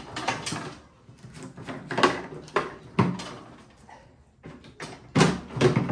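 Irregular knocks and clunks as a snowblower's cover panel is worked up by hand to get at the spark plug, about seven separate knocks with the loudest about two seconds in and again near the end.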